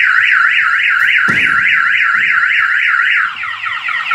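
Trailer security alarm siren set off by the door being opened, really loud: a fast up-and-down warble about four times a second, switching about three seconds in to a rapid run of falling chirps. A single knock about a second in.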